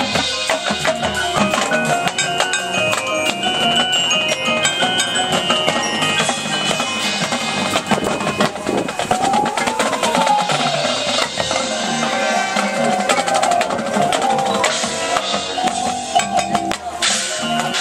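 Marching band playing its field show: winds over a steady beat of drums and mallet percussion from the front ensemble (marimbas, bells).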